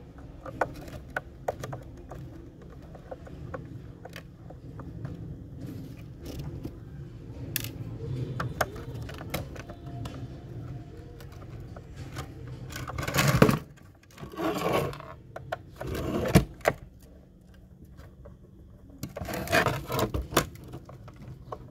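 Clicks, scrapes and knocks of a toy remote-control excavator's plastic parts being handled and worked with a small screwdriver. Several louder bursts of clattering handling noise come in the second half, as the plastic body is moved about.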